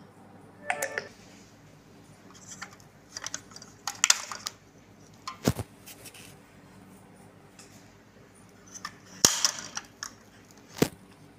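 Toy Mercedes G-Wagon model being handled, its hinged spare-wheel carrier and rear door swung open: a series of short clicks and rattles of small plastic and metal parts, the sharpest near the end.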